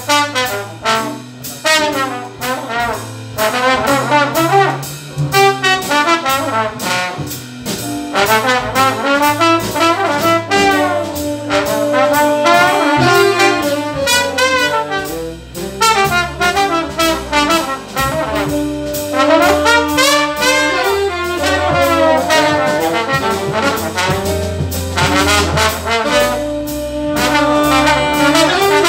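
Big band playing jazz live, with a trombone carrying the lead line over the saxophone and brass sections. Drums and a stepping bass line run underneath.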